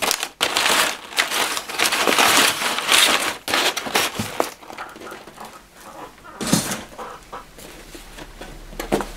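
Crumpled brown kraft packing paper rustling and crinkling as hands dig through it in a cardboard box, for about four seconds. A shorter rustle follows about six and a half seconds in.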